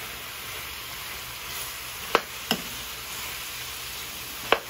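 Chicken and potato pieces sautéing in oil and tomato paste in a frying pan, with a steady sizzle as they are stirred; the stirring utensil clacks against the pan three times, twice about two seconds in and once near the end.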